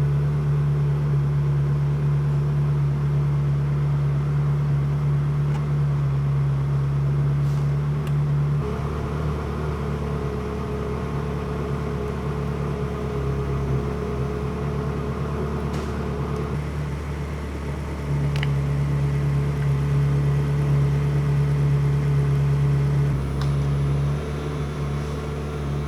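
Ferrari 360 Spider's electro-hydraulic convertible-top pump running steadily under load as the top cycles. Its hum changes about 9 seconds in and changes back about 18 seconds in.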